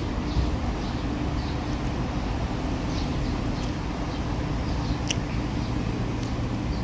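Steady rumble of highway traffic, with short high chirps of small birds now and then and a faint click about five seconds in.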